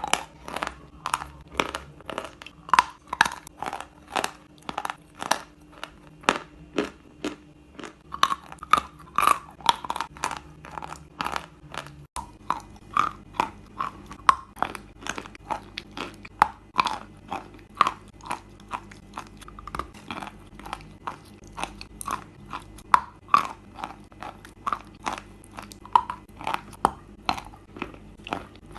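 Close-up chewing of chalk: steady, crisp crunches at about two to three bites a second.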